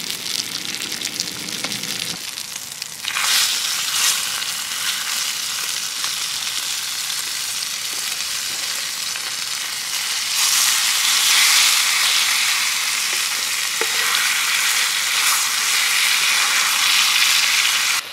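Skate wings frying in oil in a pan over a campfire: a steady sizzle that gets louder about three seconds in and again around ten seconds in.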